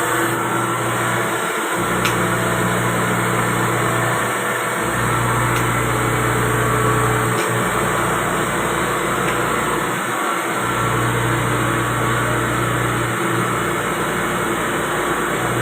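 CNC machine running a facing operation: a steady machine hum and whir, with a low drone that cuts out briefly and comes back about every three seconds.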